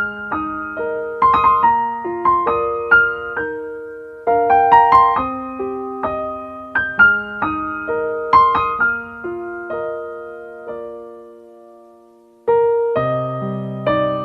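Piano music: single struck notes in a slow melody over held lower notes, each note ringing and fading. The sound dies down almost to nothing about eleven seconds in, then a fuller chord with a deeper bass comes in near the end.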